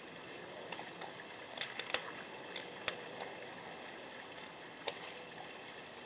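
Black bear scraping ice out of a bird bath basin: a handful of short, sharp clicks and scrapes between about one and a half and five seconds in, over a steady hiss.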